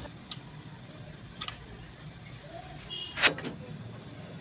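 Three light clicks and knocks, the last about three seconds in the loudest, from cookware being handled at an iron dosa griddle, over a low steady hum.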